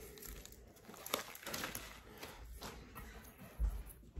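Faint scattered patter and rustle of a dry herb rub being sprinkled by hand onto raw chicken wings on a wire rack, with a low thump near the end.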